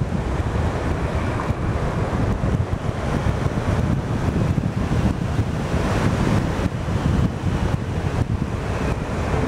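Wind buffeting the microphone of a camera on a moving motor scooter: a steady, dense low rumble.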